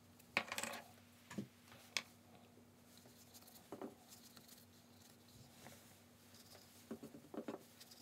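Scattered light clicks and taps, with short brush strokes, as a paintbrush and watercolour materials are handled on a tabletop, over a faint steady hum. The loudest cluster of clicks comes about half a second in, and another comes near the end.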